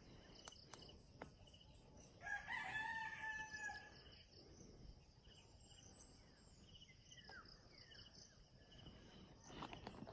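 A rooster crows once, a single held call of about a second and a half starting about two seconds in, over faint, evenly repeating insect chirps.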